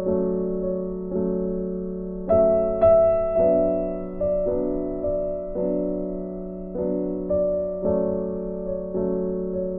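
Slow, soft background piano music: notes and chords struck about once a second, each ringing and fading, over a held low note.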